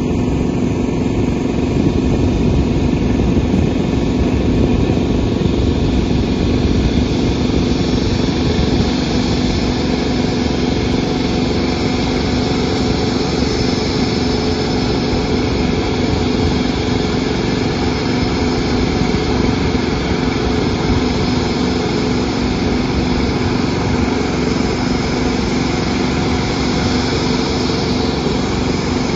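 Engines running in a steady, unbroken drone with a constant low hum.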